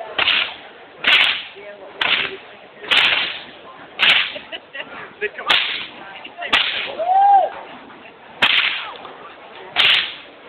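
Fire whip being cracked over and over, sharp cracks coming roughly once a second with a few longer gaps, each with a short noisy tail after the snap.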